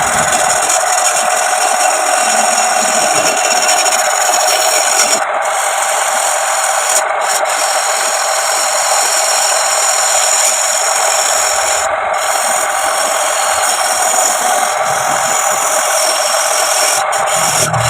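A tool scraping against wood spinning on a homemade wood lathe: a steady rasping that drops out briefly a few times as the tool lifts off the work.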